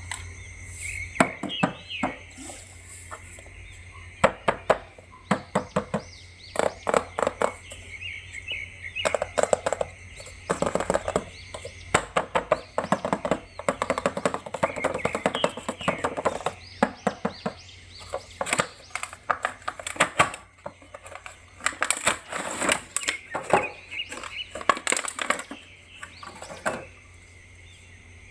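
Irregular clicks and crackles of a plastic action figure and its packaging being handled, with birds chirping in the background.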